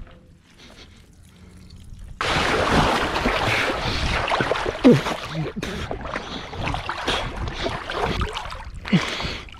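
Water sloshing and splashing right at the microphone as the camera is held low at the surface. The sound starts abruptly about two seconds in, after a quieter opening.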